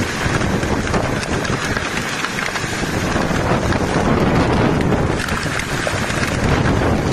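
Hailstorm: hail and rain pelting down in a dense rattle of tiny hits, with wind buffeting the microphone.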